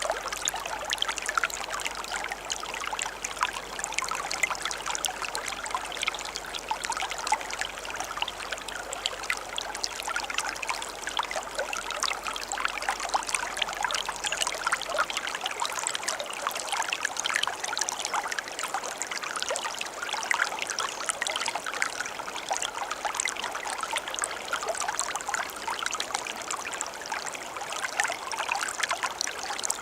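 Water running in a stream, a steady trickling and splashing made of many small quick drips and burbles.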